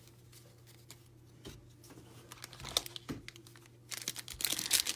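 Foil trading-card pack wrapper crinkling and being torn open by hand: a few scattered rustles and clicks, then dense crinkling near the end.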